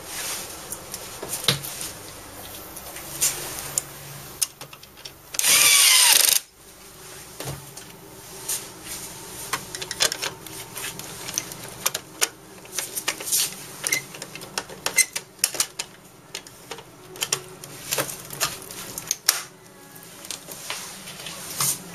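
Irregular clicks, taps and knocks of hands handling the plastic housing and side panel of an HP inkjet all-in-one printer. About five and a half seconds in, a loud, rushing burst lasts about a second.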